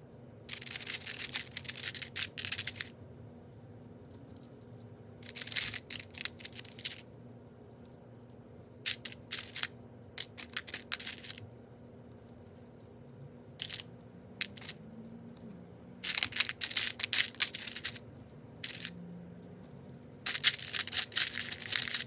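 Small jewel box seashells clicking and rattling against each other as they are handled and set around a potted succulent, in short clattering runs of a second or two separated by quiet pauses, about seven times.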